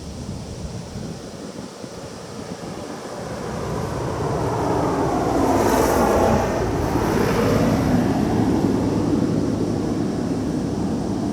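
Wind buffeting the microphone while a passing engine noise swells, is loudest about halfway through and drops in pitch as it goes by.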